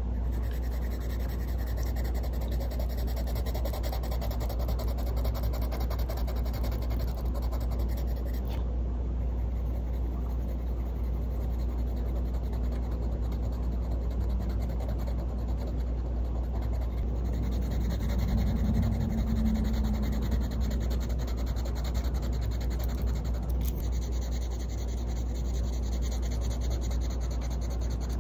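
Caran d'Ache Luminance coloured pencil scribbling on paper: a continuous scratchy rubbing of rapid back-and-forth strokes as colour swatches are filled in.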